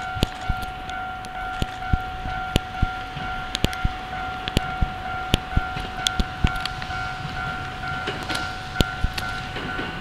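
Railway level-crossing alarm sounding a steady tone, with scattered sharp clicks, as an E217-series electric train approaches; the train's rumble grows louder near the end.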